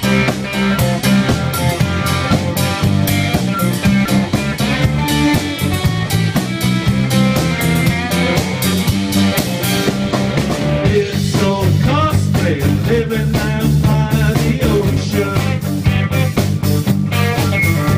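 Live rock band playing: electric guitars and bass over a drum kit keeping a steady beat, with guitar notes bending in pitch about eleven seconds in.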